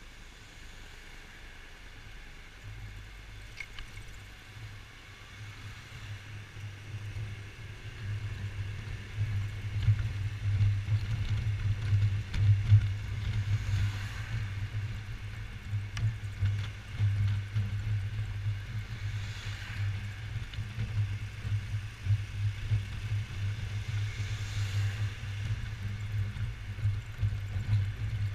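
Low rumble of a Yamaha XMAX 250 scooter riding, its single-cylinder engine mixed with wind buffeting on the front-mounted camera, growing louder from about eight seconds in. Passing traffic swells faintly three times.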